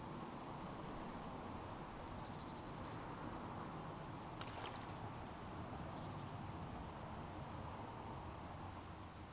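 Faint, steady outdoor background noise: an even rushing hiss with no clear tones. A single soft click comes about four and a half seconds in.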